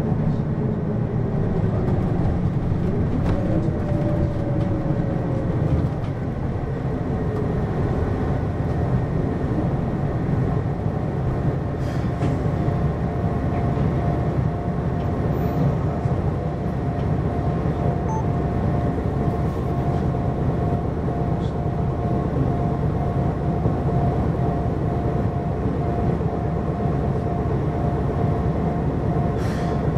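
Hino QKG-LV234N3 city bus driving: a steady diesel engine and road rumble. The engine pitch rises and falls in the first few seconds, then settles into steady running with a steady whine.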